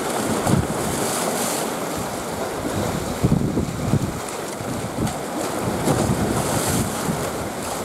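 Rough sea surging and breaking, with strong wind buffeting the microphone in irregular low gusts.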